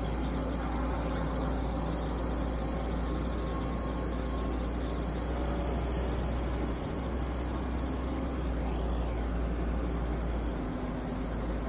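Diesel engine of a tandem-axle silage dump truck running steadily, with a constant low rumble, while its hydraulic hoist tips the box up to unload chopped sorghum silage.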